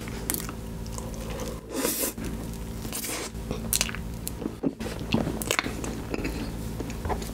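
A person chewing a spoonful of soft tiramisu, with a run of short mouth clicks.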